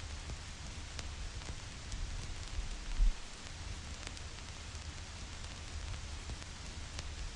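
Vinyl record surface noise: a steady hiss with scattered crackles and pops from the stylus, over a low rumble. A single low thump about three seconds in is the loudest moment.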